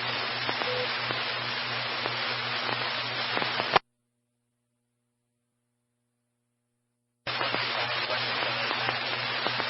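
Two-way radio static received over a scanner: an open transmission carrying only hiss and a steady hum, cut off abruptly by the squelch about four seconds in. After some three seconds of silence, the next transmission keys up with the same hiss and hum.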